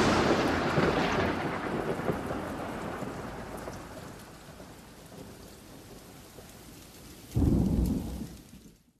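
Thunderstorm sound effect: a loud thunderclap rolling away over several seconds under a hiss of rain, then a second low rumble of thunder about seven seconds in that fades out.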